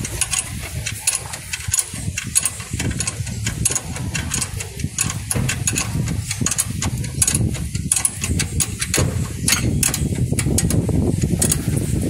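Irregular metallic clicking and tapping of hand tools as a new steering tie rod end is screwed on and tightened, over a steady low rumble.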